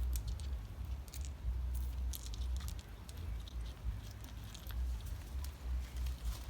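Small rocks being gathered by hand: scattered light clicks and crunches, over a low rumble on the microphone.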